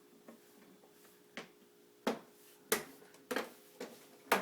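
Plastic door-trim cover on a GE Profile refrigerator door being pressed back into its mounting holes, snapping in with a series of sharp clicks, about six over three seconds, over a faint steady hum.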